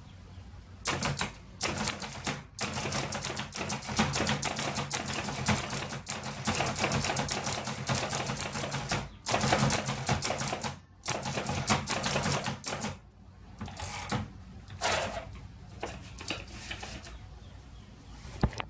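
Hammond Multiplex Portable typewriter being typed on: a fast, even run of keystrokes with two short breaks about nine and eleven seconds in, thinning to a few last strokes after about thirteen seconds.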